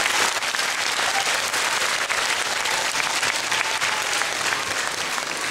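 Audience applauding steadily, a dense hall full of hand claps.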